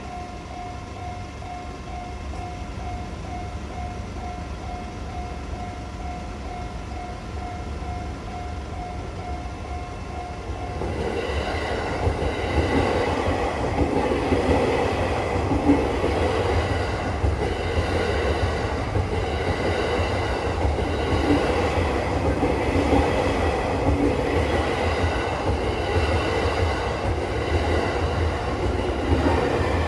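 A Japanese level crossing's electronic warning bell rings with a pulsing tone about twice a second. About eleven seconds in, a JR East commuter train reaches the crossing and passes through. Its wheels rumble and clatter over the rails, and this grows loud enough to drown out the bell.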